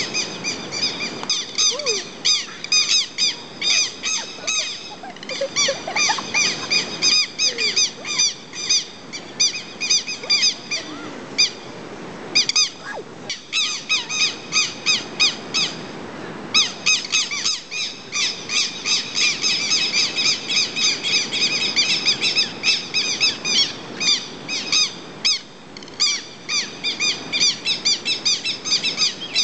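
Southern lapwings (quero-quero) calling in a rapid, loud, repeated run of harsh, high alarm notes, with short breaks about twelve and sixteen seconds in: the nest-defence alarm of birds attacking an intruder.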